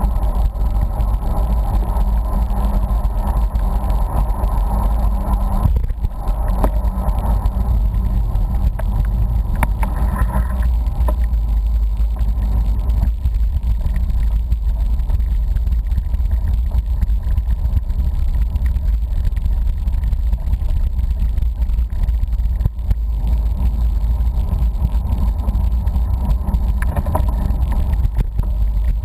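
Steady wind rumble on the microphone of a camera riding along on a road bicycle, with a mid-pitched hum that is louder in the first dozen seconds and then fades.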